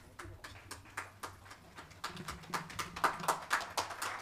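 Thin audience applause: scattered claps at first, growing denser about two seconds in.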